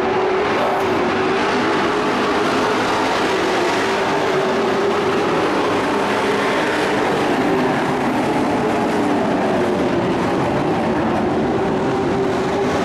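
Engines of several dirt-track race trucks running hard around the oval, a loud steady drone whose pitch rises and falls.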